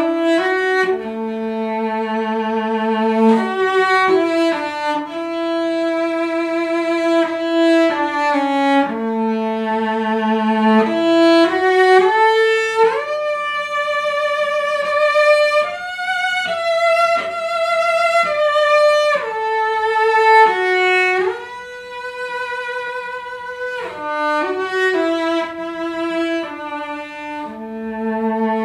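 Solo violin playing a slow melody of held, bowed notes with vibrato, one note at a time.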